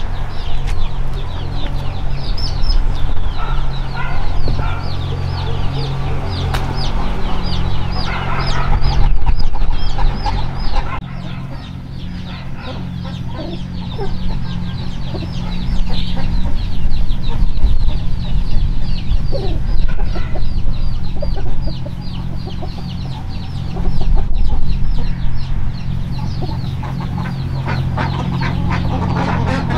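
Chickens clucking, with rapid high peeping repeated through most of the stretch, over a steady low hum.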